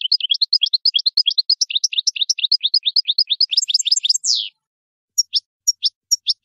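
European goldfinch singing: a fast twittering run of sharp notes, about ten a second, ending in a louder falling note about four seconds in. After a short pause the song picks up again with a few spaced single notes.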